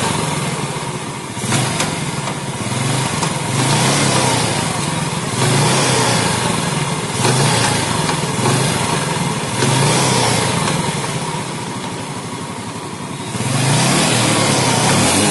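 Yamaha Jupiter Z four-stroke single-cylinder engine running and being revved up again and again, with a rough, harsh noise from the right-side clutch housing. The noise is taken to be the sign of worn or broken rubber dampers in the clutch basket, or of a clutch housing that has become quite loose.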